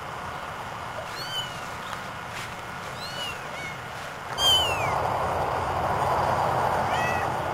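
Newborn kittens mewing: several short, high-pitched cries that rise and fall in pitch, the loudest about halfway through. A steady rushing noise sets in at the same moment.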